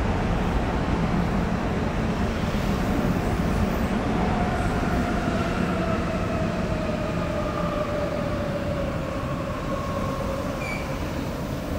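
Rubber-tyred Sapporo Toho Line subway train running in the tunnel, heard from inside the car as a steady rumble. From about four seconds in, a motor whine slowly falls in pitch over it.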